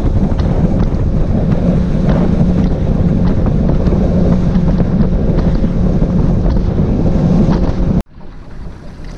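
Fishing boat running fast on a river: a steady engine drone under rushing water and wind buffeting the microphone. It cuts off suddenly about eight seconds in, giving way to much quieter open-water sound.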